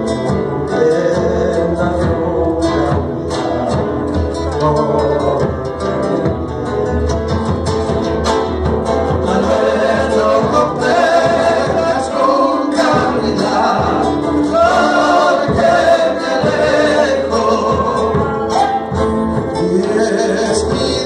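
Live band music: a voice singing over strummed acoustic guitars, with a drum keeping the beat.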